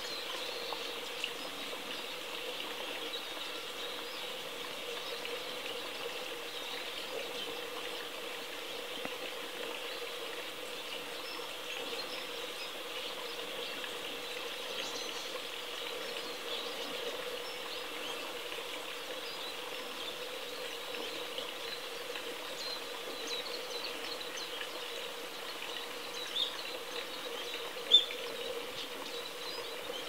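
Scattered faint, high chirps of small birds over a steady hiss, with two short, louder chip notes near the end, the second of them the loudest.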